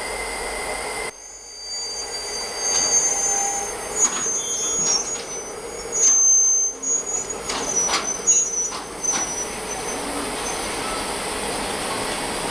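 Freight train of tank wagons rolling by, its wheels squealing high and on and off, with scattered clicks and knocks of the wheels over the rails.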